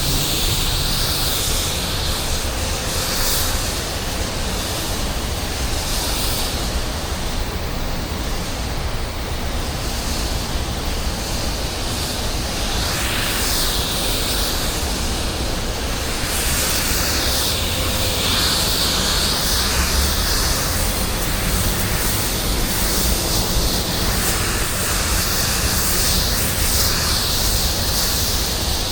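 High-pressure water from a 10 GPM pressure washer blasting concrete: a steady spraying hiss over a low drone, its brightness shifting now and then as the spray moves.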